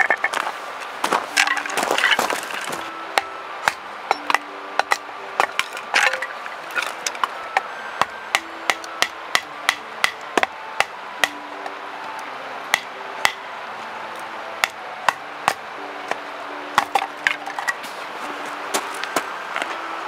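Firewood being split into kindling on a wooden chopping block: a steady run of sharp wooden knocks, about two a second, with denser cracking and splintering in the first couple of seconds.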